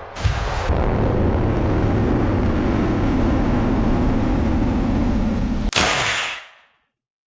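Steady, dense rumbling noise from a sound-effect track. About six seconds in, after a short break, it turns into a brighter hissing burst that fades away.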